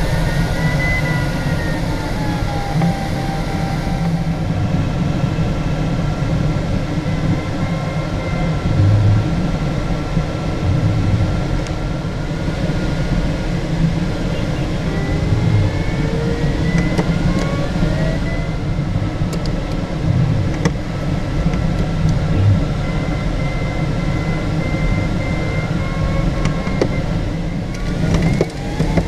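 Steady rush of airflow in a PIK-20 glider's cockpit in flight, with the electronic variometer's thin tone sliding up and down in pitch.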